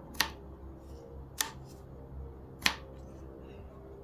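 Three sharp clicks about a second and a quarter apart from a 1990s Suzuki DR125's electrics being switched on and tested, with a faint low steady hum underneath.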